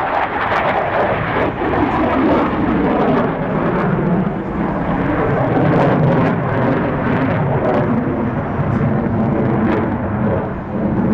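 Jet aircraft engine noise: a loud, steady rushing sound.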